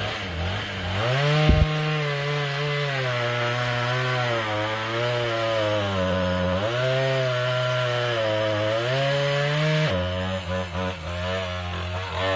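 Chainsaw engine running at high speed, its pitch sagging twice as it bogs down cutting through wood, then falling back to a lower, uneven idle near the end. A sharp thump sounds about a second and a half in.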